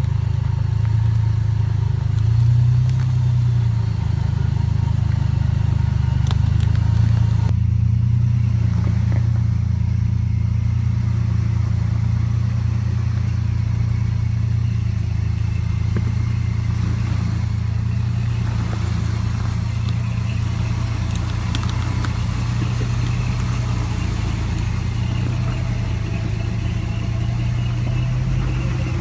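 Off-road Jeep engines running at low revs while crawling a rocky trail, a steady low drone with a few light clicks and knocks over it.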